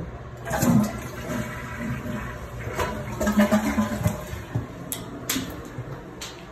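Toilet being flushed: a rush of water that keeps running and gurgling as the tank refills. A few sharp clicks near the end.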